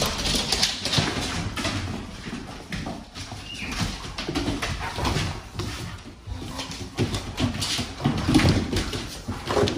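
An adult pit bull and two puppies play-fighting on a tile floor: a busy scuffle of paws and claws clicking on the tiles, mixed with short dog grunts and play growls.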